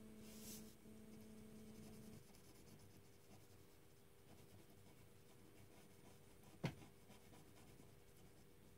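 Faint scratching of a fine-tip pen colouring on paper, with one sharp click about two-thirds of the way through.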